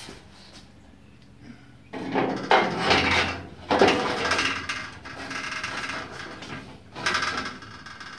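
Steel upper quarter panel for an early Ford Bronco being handled and repositioned on a workbench. After a quiet couple of seconds come a few sharp metal knocks and clatter, then rattling and scraping of the sheet metal, with another knock near the end.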